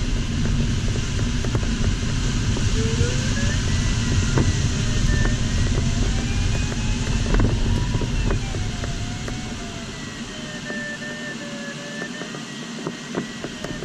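Airflow rushing over an LS4 sailplane's cockpit in flight, easing off after about eight seconds. Over it an electronic tone, typical of a glider's audio variometer, slides slowly up and down in pitch as the climb rate changes in lift.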